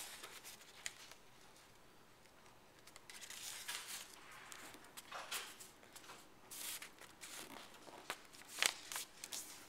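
Origami paper being folded in half and creased flat by hand, rustling and sliding on a wooden tabletop in short spells, with a few sharp crinkles, the sharpest about a second before the end.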